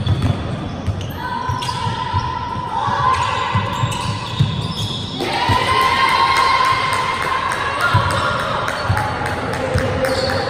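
A basketball being dribbled and players' feet on a hardwood court in an echoing sports hall: repeated low thuds and sharp knocks. Long steady high tones run over them in several stretches from about a second in.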